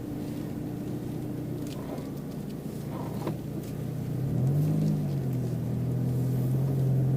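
Mitsubishi Pajero Mini's engine and road noise heard inside the cabin; about four seconds in the engine note rises as the car accelerates, then holds steady and louder.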